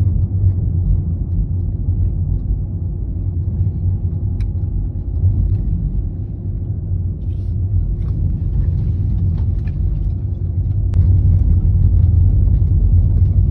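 A steady, deep rumble, with a few faint clicks over it.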